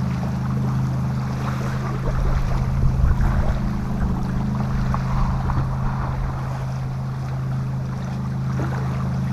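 Motorboat engine droning steadily out on the lake, a continuous low hum of unchanging pitch. Wind gusts on the microphone from about two to four seconds in.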